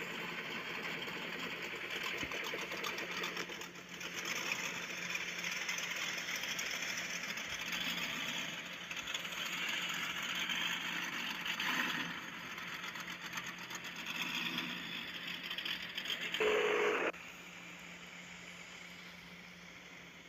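Truck engine running hard under load while towing a stuck pickup out of soft sand, with a fast steady rattle. A brief louder burst comes near the end, then the sound cuts off abruptly to a quieter steady hum.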